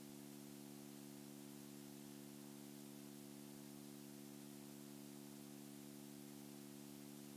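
Near silence: a faint steady electrical hum under a constant hiss.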